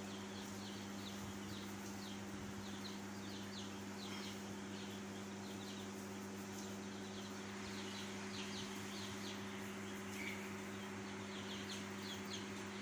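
A flock of young chicks peeping, many short high peeps overlapping throughout, over a steady low electrical hum.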